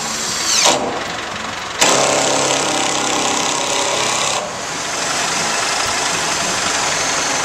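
Motor running steadily, its higher part cutting out and back in abruptly about a second in, near two seconds and a little past four seconds.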